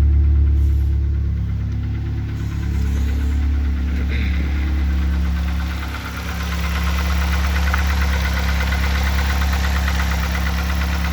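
A 2004 Mazda Tribute's 2.3-litre L3-VE inline-four engine idling cold. Over the second half a fast, light ticking rides on the idle: the knock the owner cannot place, which others have put down to the crankshaft or the camshaft.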